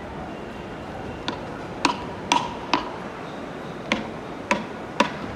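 Hard-soled footsteps clicking on a station platform floor, about two steps a second in two short runs, over the steady din of a crowded concourse.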